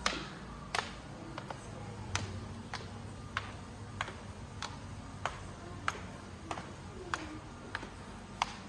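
Footsteps climbing a staircase with wooden-topped treads and carrying on across a tiled floor at the top: sharp, even taps about every two-thirds of a second.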